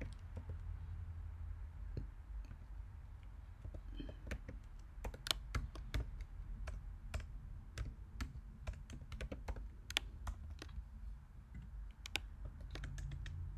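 Typing on a computer keyboard: irregular keystroke clicks in short runs with brief pauses between them, over a low steady hum.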